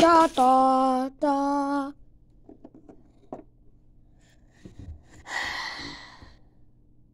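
A child's voice holding a long steady note, a short break, then a second shorter note, over the first two seconds. Then a few light clicks of plastic toy figures being handled, and a short breathy hiss about five seconds in.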